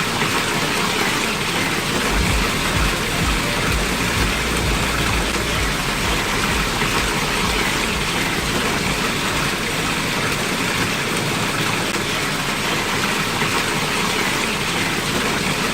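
Water pouring steadily down an artificial waterfall, an even splashing hiss, with a low rumble that fades out in the first few seconds.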